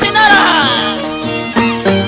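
Andean huaylía Christmas music: a violin and high voices over a steady clicking beat, with a downward-gliding melodic line in the first second.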